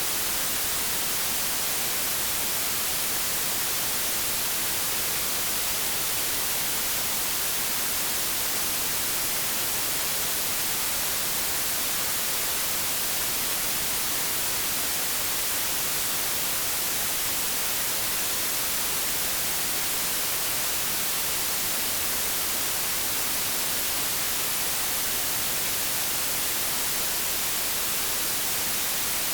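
Steady white noise: an even hiss like television or radio static, brightest in the high end, with no change in level.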